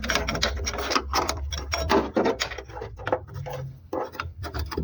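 Irregular metallic clicks and scraping of a wrench working a carburettor mounting nut in a cramped spot on the engine.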